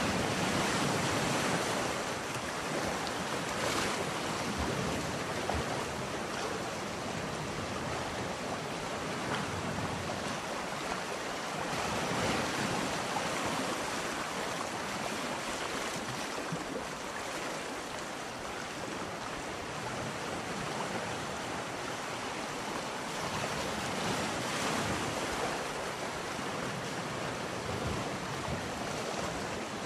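Ocean surf washing in: a steady rushing noise that swells and ebbs slowly, louder near the start, about twelve seconds in and again near twenty-four seconds.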